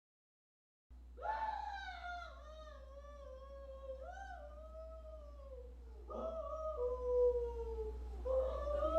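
A high, wavering, howl-like voice: three long drawn-out calls, each sliding down in pitch, starting about a second in over a steady low hum.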